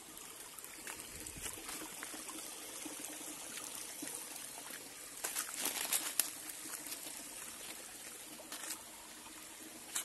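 Shallow stream trickling over rock, a steady running of water. A few sharp clicks come about five to six seconds in.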